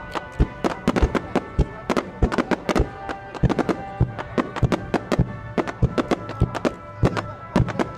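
Fireworks display: shells bursting and cracking in quick, irregular volleys, several bangs a second. Music plays steadily underneath.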